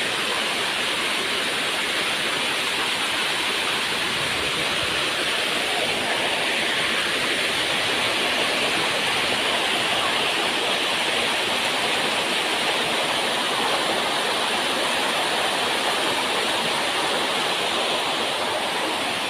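Waterfall's rushing water, a steady, unbroken rush.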